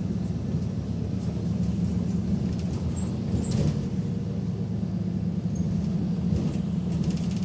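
Steady low drone of a Mercedes-Benz Citaro C2 hybrid city bus under way, heard from inside the passenger cabin: engine and running noise, with a few light clicks and rattles about halfway through and near the end.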